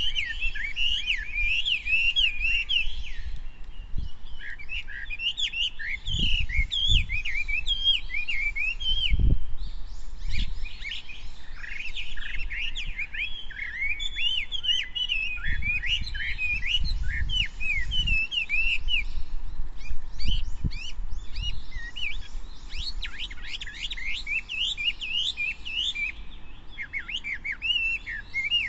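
Many small birds chirping and twittering at once, with rapid, overlapping short calls and a few low thumps underneath.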